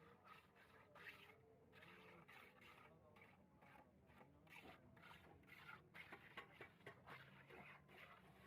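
Near silence, with faint, indistinct background sounds and a few light clicks.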